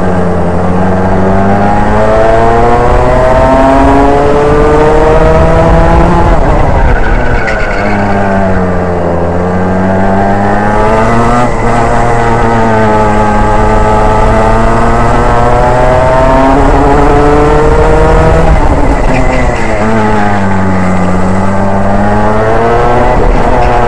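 Racing kart engine heard from on board, revving up and down as the kart laps the track. Its pitch climbs steadily, then dips sharply and recovers several times, dropping into the corners and rising again along the straights.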